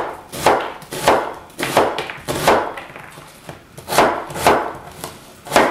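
Chef's knife coarse-chopping an onion on a plastic cutting board: about eight sharp chops, roughly two a second, with a short pause about halfway through.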